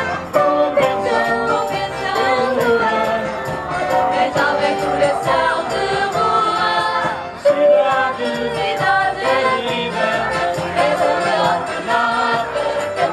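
Live folk music from a vocal group singing with acoustic guitar accompaniment, over a steady percussive beat.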